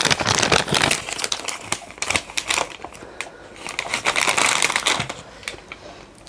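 Paper bag crinkling and rustling as it is handled, in bursts: busiest through the first couple of seconds and again around four seconds in, then quieter near the end.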